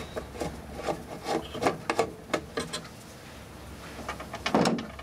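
Handling noise from a circuit board and the plastic case of an electronic electricity meter: a quick run of small clicks, knocks and rubs that thins out after about two and a half seconds, then one louder scrape or knock near the end.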